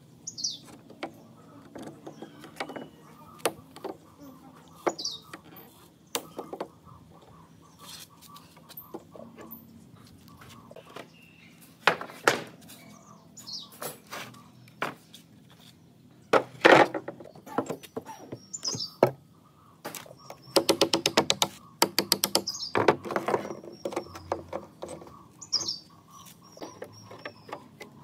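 Pliers and a hammer pulling old nails from weathered wooden planks: scattered knocks and taps of metal on wood and planks knocking against the table, with a quick run of taps about two-thirds of the way through. Birds chirp briefly now and then.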